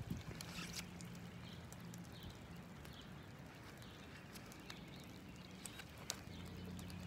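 Faint outdoor ambience: a steady low hum, scattered light clicks and faint short high chirps.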